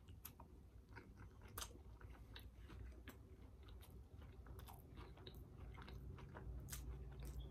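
A person chewing a mouthful of burger with cheese curds: faint, irregular mouth clicks and soft crunching.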